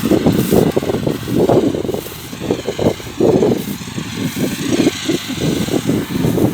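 Kubota DC-70 combine harvester's diesel engine running, a loud uneven rumble that surges and drops every second or so.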